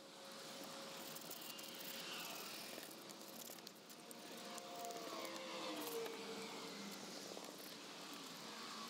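Dry sandpaper rubbed by hand along the edge of a 1980s Nylint pressed-steel toy dump-truck bed, a steady scratchy rasp of short back-and-forth strokes.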